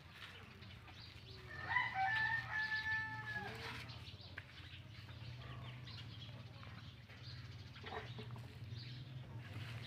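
A rooster crowing once, a drawn-out cock-a-doodle-doo beginning about two seconds in, over a low steady hum.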